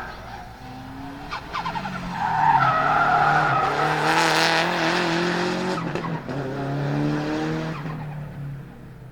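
Subaru Impreza GC8 Group A rally car's turbocharged EJ20 flat-four engine running hard past the camera, its pitch shifting up and down with the revs. It builds to its loudest a couple of seconds in, then fades away near the end.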